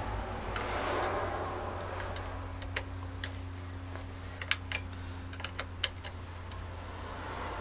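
Hand tools clicking and tapping against the metal of a Bosch starter motor while its selector fork pivot is undone: irregular sharp metal clicks, the sharpest about four and a half and six seconds in, over a steady low hum.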